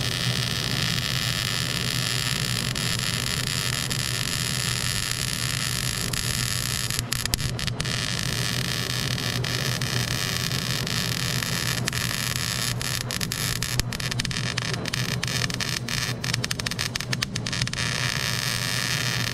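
Wire-feed (MIG) welding arc on the steel trailer jack beam, a steady hiss with a low hum as a bead is laid along a reinforcing gusset, with many brief breaks from about seven seconds in where the arc stops and restarts.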